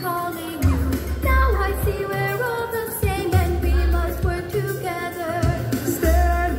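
Song from the animatronic clock tower show played over loudspeakers: voices singing a melody over a backing track with a repeating bass line.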